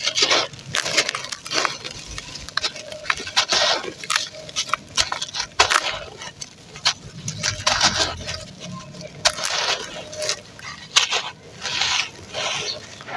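Crunchy chunks of red sand being crumbled and crushed, possibly into foamy water: a dense run of irregular crunches and sharp cracks, some loud and some soft, coming several times a second.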